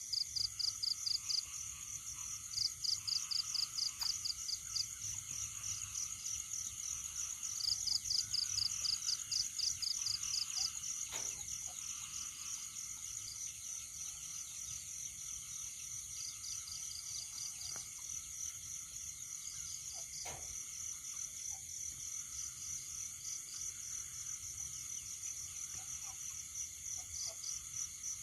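A chorus of calling animals making steady, very rapid high-pitched trills. A second, slightly lower trill joins in for a second or two at a time, mostly in the first ten seconds.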